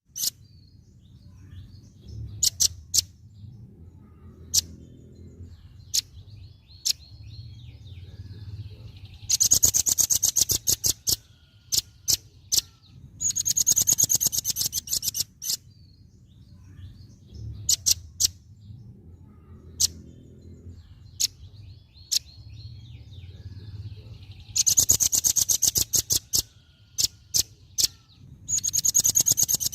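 Velvet-fronted nuthatch calling: scattered single sharp chip notes, and four runs of rapid, loud, sharp notes, each about two seconds long, in two pairs. The same sequence comes round again about fifteen seconds later, as in a looped tutor recording.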